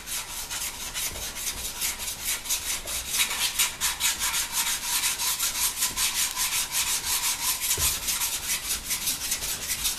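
Diamond sharpening stone scrubbed back and forth over the cast-iron sole of a rusty hand plane, a rapid, even rasping rhythm of short strokes. The stone is grinding off surface rust so the plane will glide instead of drag.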